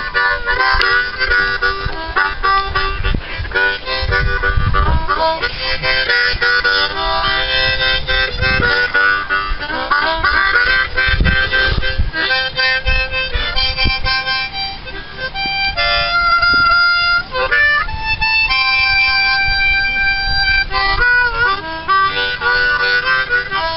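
Harmonica playing held chords, with a few wavering, bent notes near the end and irregular low thumps underneath.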